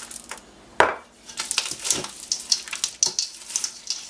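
A wooden spatula stirring thick batter with chocolate chips in a stainless steel mixing bowl: irregular scraping strokes against the bowl. One sharp knock about a second in is the loudest sound.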